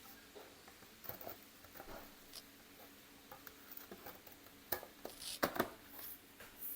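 Light clicks and taps of a MacBook Air's bottom case being handled and fitted back on, with a few louder knocks about five seconds in.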